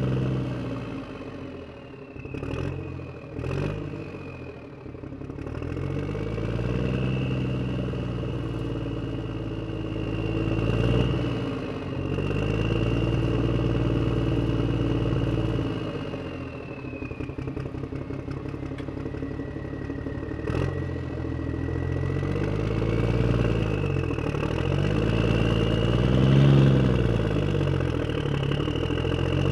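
An engine running, its pitch swelling and sinking again and again, with a few sharp clicks.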